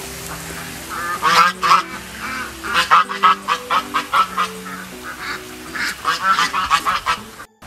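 Waterfowl honking: a long run of loud, short honks in quick succession, several birds at once, cut off abruptly near the end.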